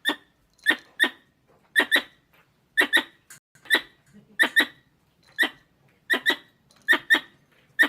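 Small squirrel giving short, sharp chirping calls, mostly in quick pairs, repeating about once a second.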